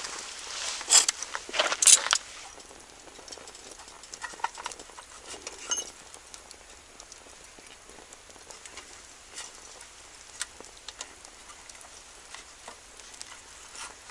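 Wood fire crackling and popping in a small stainless-steel box stove, with scattered sharp pops over a faint steady hiss; the loudest clusters of pops come about one and two seconds in.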